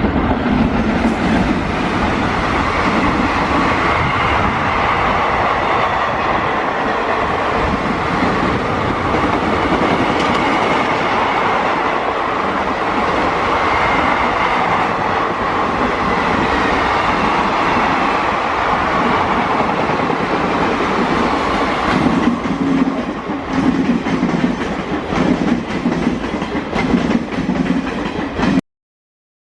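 Passenger express train's coaches running past, a steady rumble with clickety-clack of wheels over rail joints. In the last several seconds the separate wheel beats stand out more, and the sound cuts off suddenly near the end.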